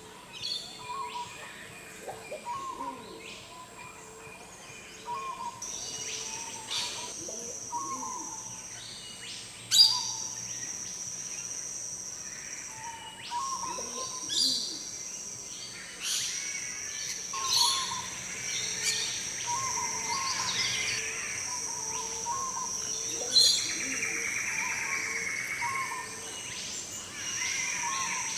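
Wompoo fruit dove calling with short, low notes repeated about every second. Around it is a rainforest chorus of other birds, with a steady high-pitched whine that starts about five seconds in and several sharp, loud calls.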